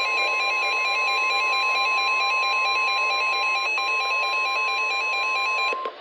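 NOAA Weather Radio warning alarm tone: a single steady high-pitched tone, held at a constant level and cutting off just before the end. It is the alert signal that comes before a warning broadcast.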